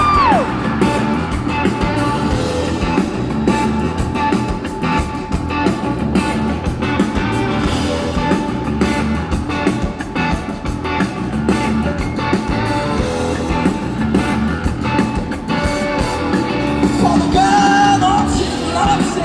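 Rock band playing live, with electric guitar and an even drum beat, and a singer's voice coming in near the end.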